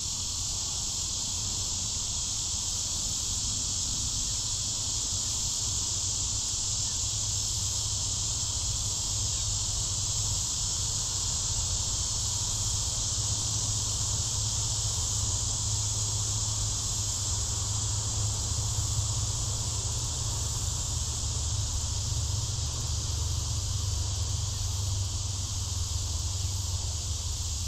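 Insects droning steadily in one high, unbroken, even band, with a steady low rumble underneath.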